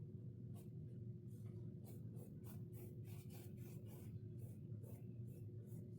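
Paintbrush strokes on canvas: a quick run of soft scratchy brushing sounds, about three a second, over a faint steady hum.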